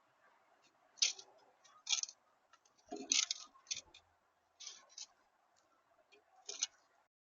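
Birds at a feeder making a run of irregular sharp ticks and taps, about seven strong ones, over a faint steady hum that stops near the end.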